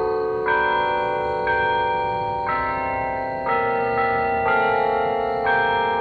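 Church bells playing a slow tune, a new note struck about once a second, each at a different pitch and ringing on under the next.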